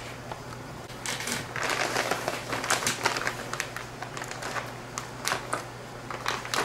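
Plastic seed pouch crinkling and crackling as it is handled and its tear strip is pulled open, a dense run of quick rustles starting about a second in.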